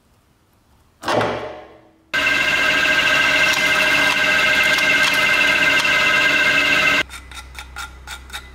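A drill press bit cutting into the rusty metal body of an antique clothes iron: a loud, steady screech made of several fixed pitches, lasting about five seconds and stopping abruptly. It is preceded by a sharp clack that rings away over about a second. It is followed by several light metallic clicks, as a pointed tool picks at the drilled hole over the low hum of the drill press.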